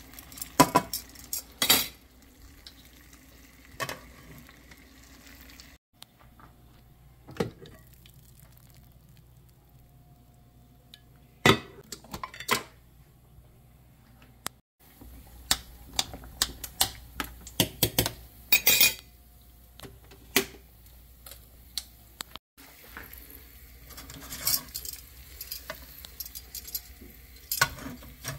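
Metal tongs clinking and scraping against a frying pan, in scattered sharp clicks, while chicken skin fries with a faint sizzle.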